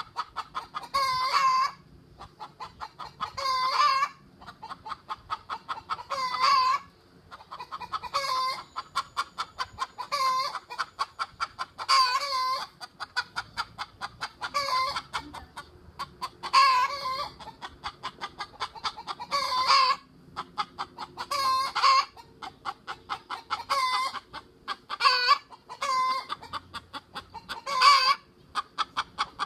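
A chicken clucking without pause: quick runs of short clucks broken every two to three seconds by a louder, drawn-out call.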